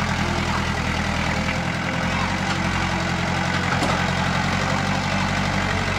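An engine running steadily at constant speed, with a low, even hum.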